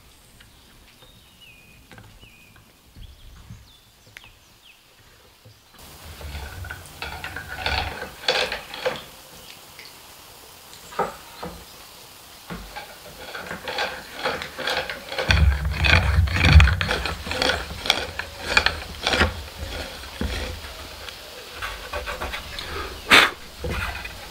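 Hand tool scraping and cutting into a wooden board in quick, rhythmic rasping strokes, starting about six seconds in after a quiet start. A low rumble comes in midway, and there is one sharp knock near the end.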